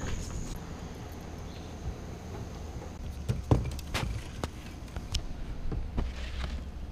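Scattered clicks and knocks of fishing rods and tackle being handled in a bass boat, several in the second half. A steady, high insect drone runs underneath.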